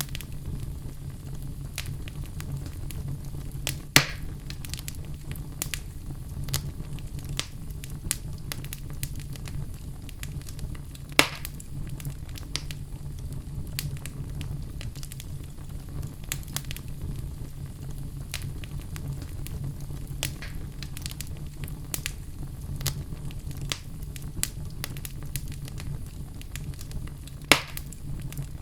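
Wood fire burning in a fireplace, with a steady low rumble and constant crackling from the logs, and three louder pops, the first about four seconds in, one near the middle, and the last near the end.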